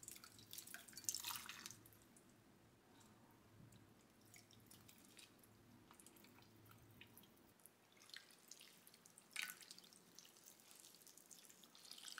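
Faint water drips and splashes as blanched spinach is lifted dripping from a pan of hot water and dropped into a glass bowl of cold water, then swished around with chopsticks. There are two splashier spells, about a second in and again around nine seconds, and a faint low hum that stops about seven and a half seconds in.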